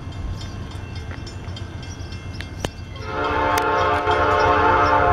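Diesel locomotive's multi-note air horn sounding one long blast that starts about three seconds in, over a steady low rumble of the approaching Norfolk Southern coal train.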